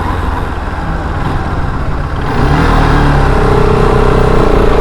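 Bajaj Pulsar RS200's single-cylinder engine running under the rider, its pitch climbing a little past two seconds in as the throttle opens, then holding steady with a whine.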